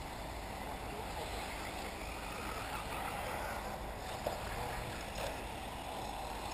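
1/8-scale electric RC off-road buggies running on a dirt track, a steady hiss of tyres and drivetrains with no clear motor whine standing out.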